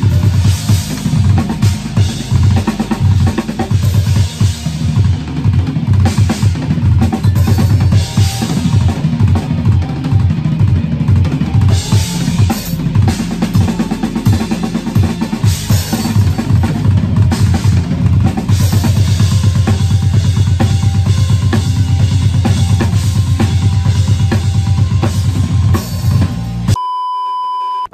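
Tama drum kit with Meinl cymbals played hard in a metal style: rapid bass-drum patterns with snare hits and cymbal crashes, settling into a steady, very fast double-bass run about two-thirds in. Near the end it cuts off suddenly to a single steady high tone.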